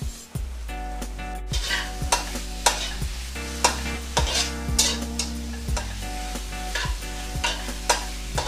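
Metal spatula stirring and scraping cubes of pork fat and chicken skin around a granite-coated wok, in repeated strokes about once or twice a second. A light sizzle runs underneath as the fat begins to render.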